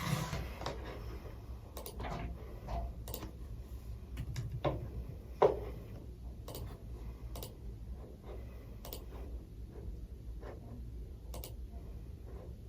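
Scattered light clicks and taps at irregular intervals, with one sharper knock about halfway through, over a steady low hum.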